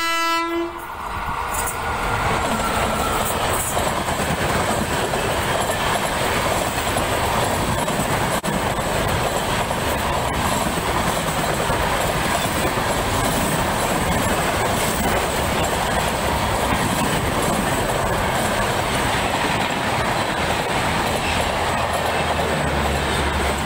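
Indian Railways express train passing close at about 105 km/h on straight track: the electric locomotive's horn ends about a second in, then a steady loud rush of wheels on rails as the coaches go by.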